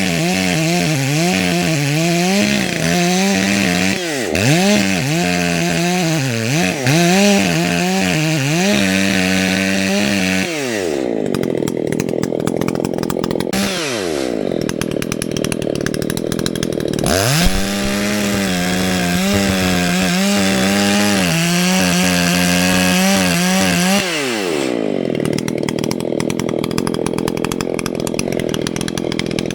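Echo CS-620PW two-stroke chainsaw cutting into a dead tree at full throttle, its engine note wavering as the chain bogs and recovers under load. It drops back to idle about ten seconds in, comes back up to a second cut of about seven seconds, then drops to idle again near the end.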